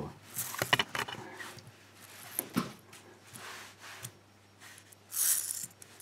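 Small plastic-and-metal pull-back motor gearbox with its toy wheels being handled and turned by hand: scattered light clicks and scrapes, with a brief rushing noise about five seconds in.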